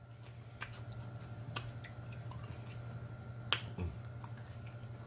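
Close-up mouth sounds of eating sauced chicken wings: sharp, wet smacking clicks, the three loudest spread across the stretch, over a steady low hum.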